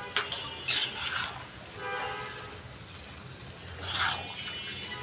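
A spatula stirring and scraping through cooked chickpeas in a frying pan: a few short scrapes in the first second or so and another about four seconds in.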